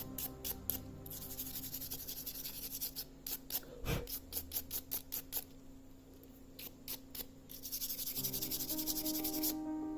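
Used toothbrush scrubbing around the edges of a Samsung Galaxy S8's frame to clear off dust. It comes in two spells of bristle rubbing, with a run of light clicks and taps in the middle.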